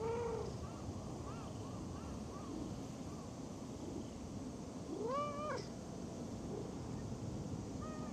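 Cat meowing: one call at the start and a louder, longer meow about five seconds in. Between the two, a run of faint short chirps about two a second.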